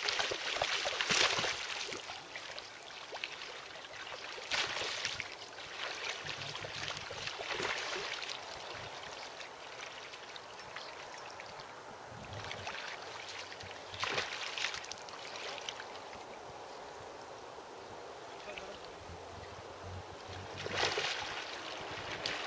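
Hooked pike thrashing and splashing at the water's surface in several separate bursts, over steady lapping of water.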